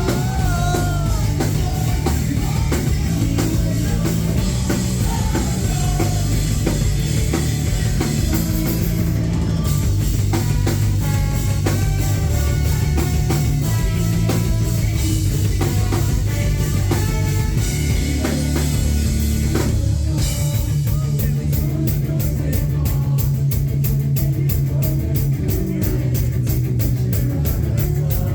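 Rock band playing live, with a drum kit and guitar. About two-thirds of the way through, the beat turns into a denser run of even, fast hits, about five a second.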